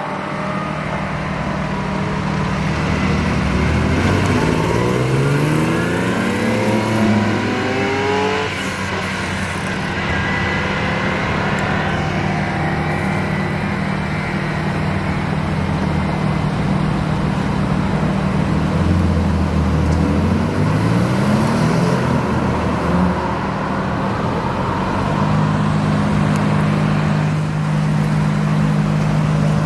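Sports car engines: one idles steadily while cars accelerate away hard with rising revs, once about three seconds in and again about nineteen seconds in.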